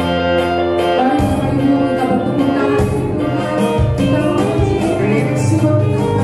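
Worship band music: keyboard chords with a bass line and a steady beat that come in about a second in, and a woman singing lead into a microphone.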